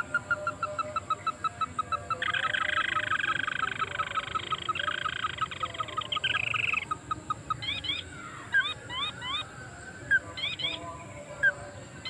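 Crake calls, fitting the ruddy-breasted crake: a steady series of short clipped notes at about four to five a second, a loud, dense, chattering trill from about two seconds in to about seven, then repeated short up-sweeping calls.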